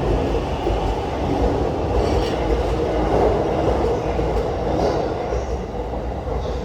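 A train running past a station platform: a steady rumble of wheels on rail, easing slightly near the end.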